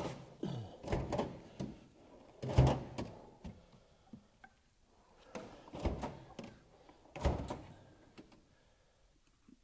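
A series of heavy knocks and thuds in several groups, with a short ringing after some of them, the loudest about two and a half seconds in.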